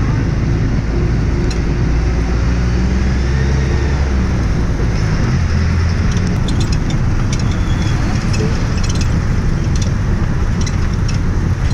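Steady engine and road rumble of a moving road vehicle, with a slight shift in engine pitch about four seconds in. Scattered light clicks and rattles come in over the second half.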